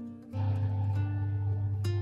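Panasonic countertop oven running with a steady low hum that comes on about a third of a second in and becomes the loudest sound. Plucked acoustic guitar music plays over it.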